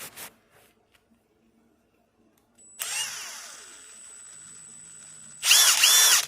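Milwaukee 2962-20 half-inch impact wrench being triggered. About three seconds in, a short blip whose motor whine winds down, leaving a faint steady high whine. Near the end come two quick loud bursts, each rising and falling in pitch.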